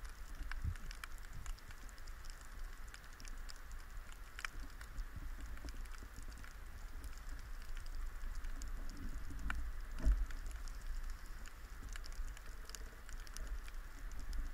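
Underwater ambience: a steady crackle of many faint, irregular clicks over a low rumble, with one louder knock about ten seconds in.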